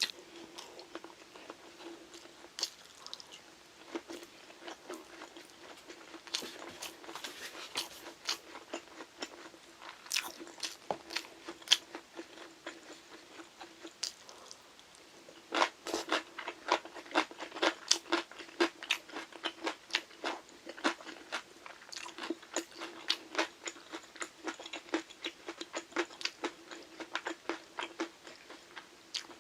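Close-miked chewing and crunching of crunchy banchan (Korean side dishes), crisp bites coming in quick runs, sparser at first and densest from about halfway through. A faint steady hum runs underneath.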